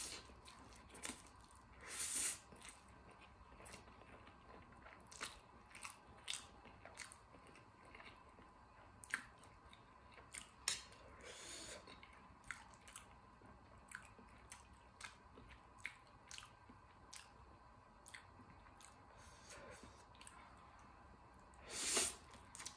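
A person eating chewy instant ramen noodles close to the microphone: wet chewing and smacking throughout, with a few louder slurps near the start and again near the end.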